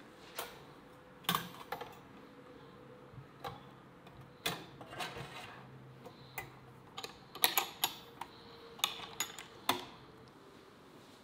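Wire grill basket clicking and clinking as its lid is closed over a whole fish and the handles are gripped: sharp, irregular metal clicks, with a quick cluster of them about seven seconds in.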